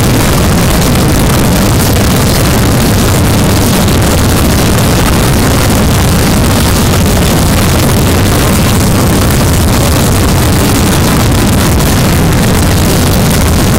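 Loud, steady, harsh noise with a low rumble, unchanging throughout, with no clear tones, beat or voices.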